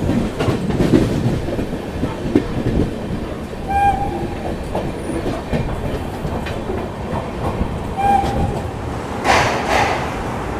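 Passenger train running into a junction station, its wheels knocking over rail joints, with a short tone sounding about every four seconds.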